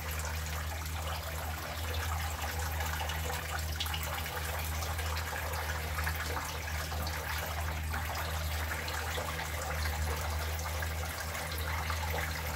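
Water running steadily from a kitchen tap, over a steady low hum.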